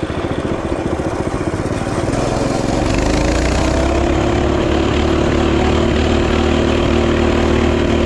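Mini bike's small engine running under way. It is low and uneven at first, then revs up about three seconds in and holds a steady higher pitch.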